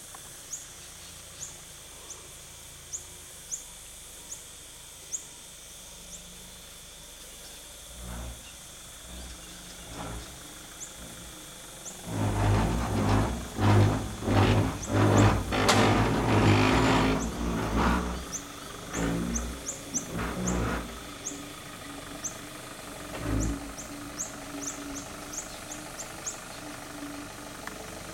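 Nissan D22 pickup's engine revving hard in repeated bursts, loudest through the middle, as the truck claws up and over deep mud ruts. Short high chirps repeat about once a second in the quieter stretches before and after.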